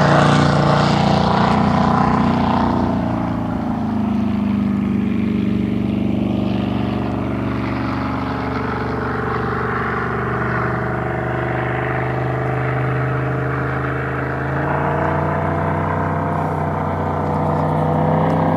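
Chevrolet 409 big-block V8 in a flatbottom V-drive drag boat running steadily on the water. Its pitch drops a few seconds in and rises again about three-quarters of the way through.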